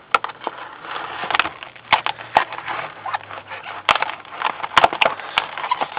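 Plastic packaging being cut open with a knife: irregular crinkling with sharp snaps and clicks.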